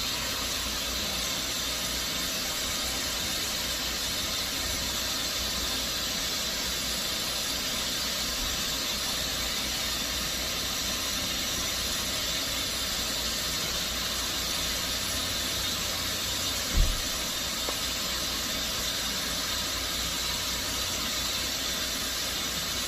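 Hairdryer blowing steadily at a high heat setting: an even, unbroken rush of air. One short, low bump comes about 17 seconds in.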